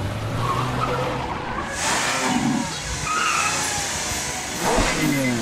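A car engine runs with a steady low note for the first second or so. Then a broad hiss of skidding tyres comes in, with sliding pitch lines, and the engine note falls away near the end.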